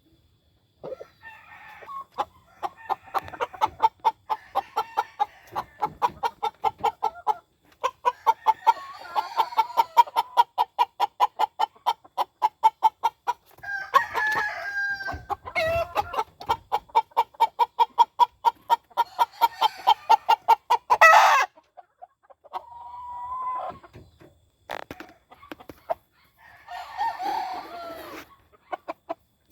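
Game chickens clucking in long, quick rhythmic runs, with roosters crowing a few times. There is one sharp knock about two-thirds of the way through.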